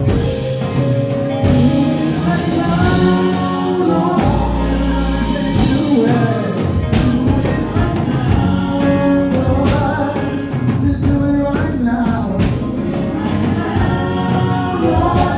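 Live gospel worship singing: a male and a female vocalist on handheld microphones, with instrumental backing and a steady beat of percussion.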